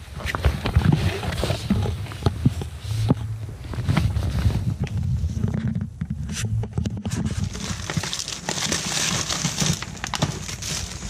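Rummaging through a box of packaged goods: plastic packaging crinkling and items knocking and clattering as they are moved, over a low rumble of handling noise. A longer run of plastic crinkling comes near the end.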